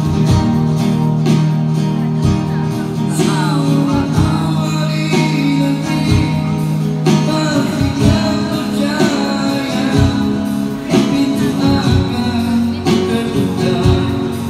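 Live acoustic guitar played with a man singing over it.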